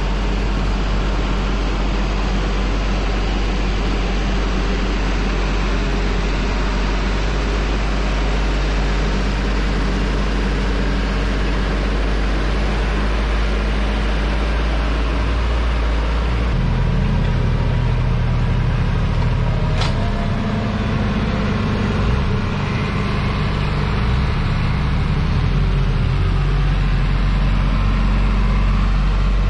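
New Holland TM165 tractor's six-cylinder diesel engine running steadily under load while it pulls a chisel plough through the ground. The engine's low note shifts about halfway through.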